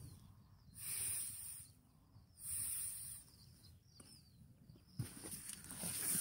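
Thermarest NeoAir X-Lite air mattress being inflated by mouth: short breathy puffs of air blown into its valve, about three in the first few seconds. From about five seconds in, the mat is handled, with rustling and clicks.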